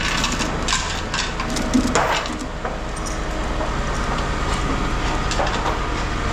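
A vehicle engine idling steadily, with scattered knocks and clanks of scrap being handled over it, the loudest knock about two seconds in.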